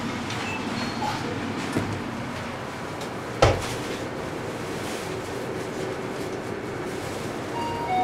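Hitachi rope-traction passenger elevator car running between floors: a steady ride noise, with a single sharp clunk about three and a half seconds in.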